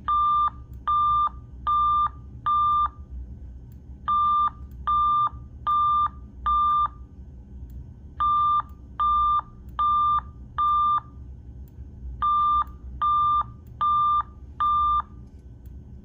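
Fire alarm speaker/strobe sounding an alarm tone: sixteen even, steady-pitched beeps in four groups of four, with a short pause between groups.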